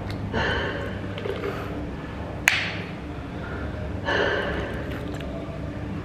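A person drinking from a plastic water bottle, with two short breaths between swallows and a single sharp click about two and a half seconds in, over a steady low background rumble.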